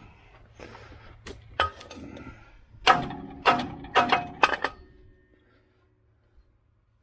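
Five sharp metal-on-metal clanks about half a second apart, each ringing briefly at the same pitch, from steel parts of a car's front suspension being struck. Before them come a few light handling clicks.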